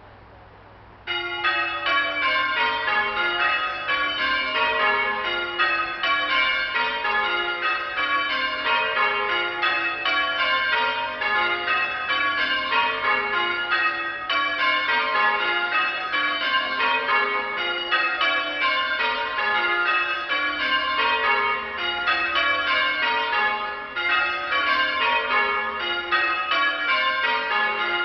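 Church bells being rung in change ringing, starting about a second in: a steady run of strikes, each sequence stepping down the scale, with the order shifting from row to row.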